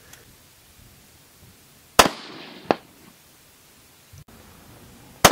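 Rifle shots: one sharp crack about two seconds in and another at the very end, each trailing off in a short echo. About two-thirds of a second after the first comes a shorter, sharp report of the bullet striking a steel target downrange.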